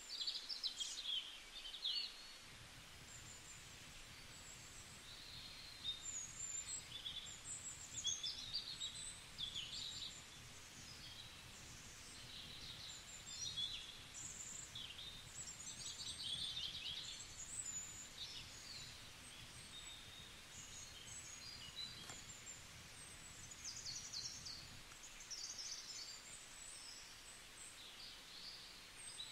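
Birds chirping and singing: many short, high calls and trills, irregular and overlapping, over a faint low hum that fades in after a couple of seconds and drops out near the end.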